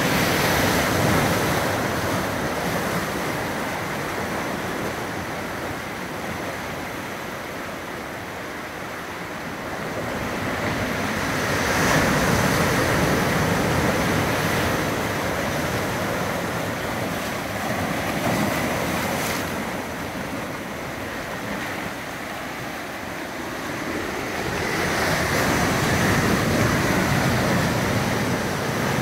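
Ocean surf breaking and washing over granite shore rocks, swelling and easing in slow surges, loudest right at the start, about twelve seconds in and again near the end.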